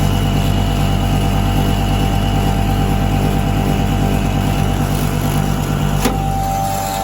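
Double-chamber maize grinding mill running, a loud steady mechanical hum with a fluttering low drone. About six seconds in a sharp click sounds, and the low drone then falls away, leaving a lighter steady tone.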